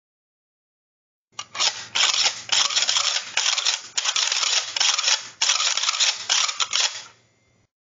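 A dense, rapid rattle of many tiny clicks from a kitchen item being handled, starting about a second in and cutting off abruptly near the end.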